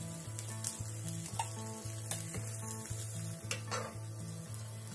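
A metal fork scraping and tapping against the nonstick plates of an electric waffle maker as cooked waffles are pried loose, a few sharp clicks, with a faint sizzle from the hot plates. Soft background music with a repeating low bass line plays under it.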